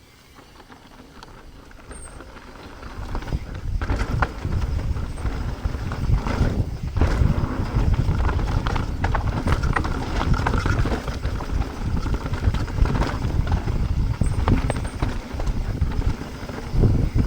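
Mountain bike rolling fast down a rough downhill trail: wind rumbling over the microphone, with the tyres and frame clattering over rocks and roots in many sharp knocks. It builds up over the first few seconds as the bike gathers speed.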